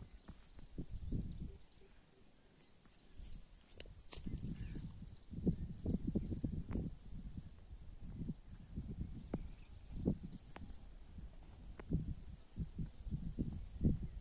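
Insects, likely crickets, chirring steadily in a high, evenly pulsing chorus, with irregular low rumbles and thumps on top that are louder.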